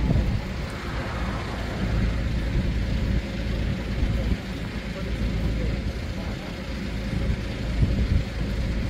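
Road traffic noise from cars passing on a nearby road: a steady, heavy low rumble.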